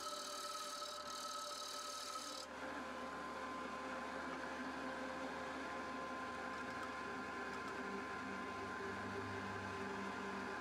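A steel turning tool scraping the rim of a spinning red gum bowl on a wood lathe, a hissing scrape that stops abruptly about two and a half seconds in. A steady machine hum carries on after it.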